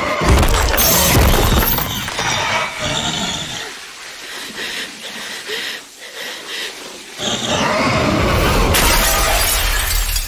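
Anime battle sound effects: loud crashing and shattering in two stretches with a quieter lull between, ending as a metal knife blade shatters into pieces.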